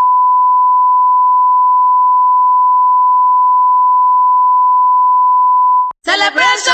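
A steady 1 kHz reference test tone: a single loud, pure beep held unchanged, cutting off just before six seconds in. Music with singing starts right after it near the end.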